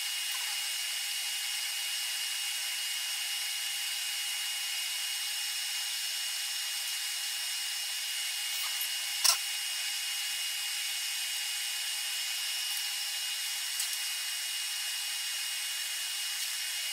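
A shop power tool running steadily: an even high-pitched machine noise with a constant whine, one brief click about nine seconds in. It starts and stops abruptly.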